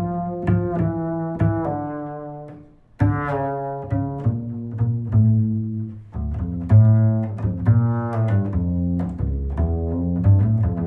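Background music: a melody of separate pitched notes over a low bass line, fading out and starting again about three seconds in.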